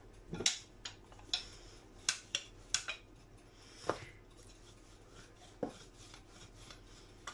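Dough being pressed flat by hand and rolled out with a rolling pin on a countertop: soft rubbing with about half a dozen irregular light knocks and clicks as the pin and hands meet the counter.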